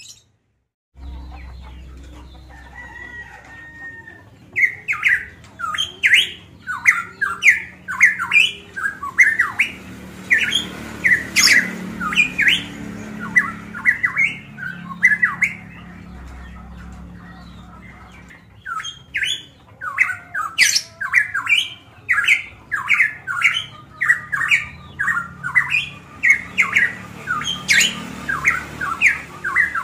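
Caged pitohui (cucak emas Papua) in full song: rapid runs of short, sharp, squawking notes, several a second. The runs begin a few seconds in, ease off briefly past the middle, then pick up again densely.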